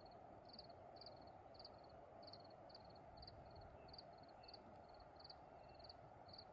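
Faint night chirping, most likely an insect, in short high pulsed chirps repeating about two to three times a second over a steady low hiss. No thunder is heard.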